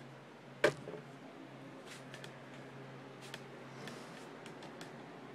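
A single sharp click about half a second in, then a few faint ticks, over a steady low hum.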